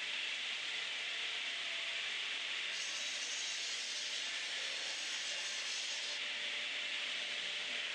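Old cast-iron Bäuerle table saw running with a steady hiss while a strip of 21 mm birch plywood is ripped on it; the cut adds a brighter, sharper edge to the noise for about three seconds in the middle.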